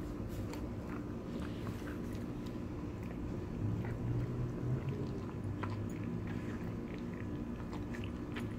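Rottweiler chewing and licking up crumbs of barbecued chicken from the floor: soft, scattered clicks of mouth and teeth over a steady low hum.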